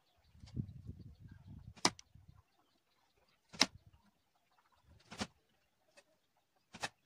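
Arrows from a barebow recurve striking a cardboard-box target, four sharp smacks about a second and a half apart.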